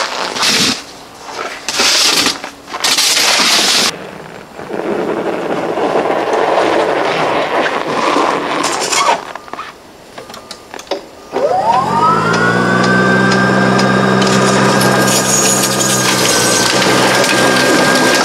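Greenworks Pro 80V two-stage electric snow blower starting up about eleven seconds in: its motor whine rises quickly, then settles into a steady whine as the auger and impeller throw snow. Before that, uneven bursts of crunching noise.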